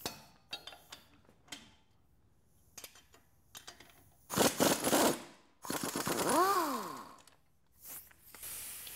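Pneumatic impact wrench undoing the 18 mm bolt of a Jeep Wrangler JK's rear shock absorber, run in two loud bursts of about a second each, the second with a whine that rises and falls in pitch. Before them come a few light metal clicks of tools.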